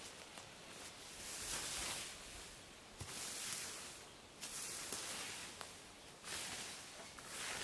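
Hand scythe swishing through tall, lush grass in steady mowing strokes, about one swish every second and a half.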